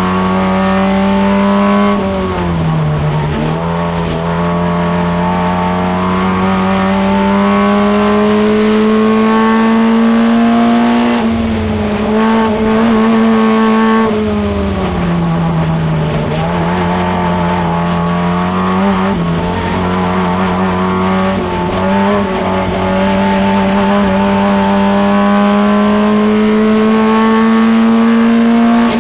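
Holden Gemini race car's four-cylinder engine, heard from inside the cabin at racing speed. Its pitch climbs slowly through long pulls and drops sharply several times, about two seconds in, around the middle, and again at the end.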